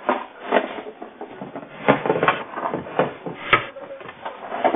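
Irregular knocks and clatter, about seven sharp strokes in under five seconds, as goods are grabbed and knocked about on a shop counter, heard through a security camera's tinny microphone.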